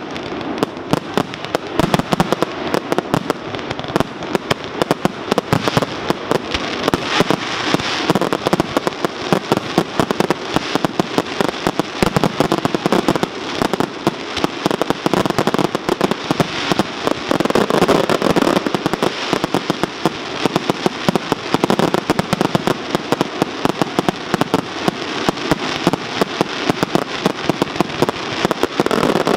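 Fireworks display going at full pace: a dense, unbroken run of bangs and crackles from bursting aerial shells and launches from the ground, many per second.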